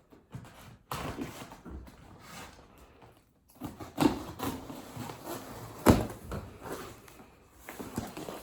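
A shipping box being opened and its packing handled by hand: irregular rustling and scraping, with two sharp knocks about four and six seconds in.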